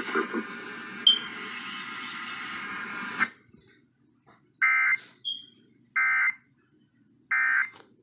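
FM radio airing an Emergency Alert System test. Its audio cuts off about three seconds in, then three short, identical squawks of digital data sound just over a second apart: the EAS end-of-message code that closes the alert.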